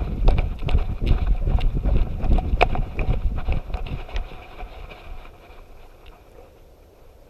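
A dog running fast with an action camera strapped to its harness: quick, rhythmic thudding footfalls with the camera and harness jolting, which fades about four seconds in as the dog slows.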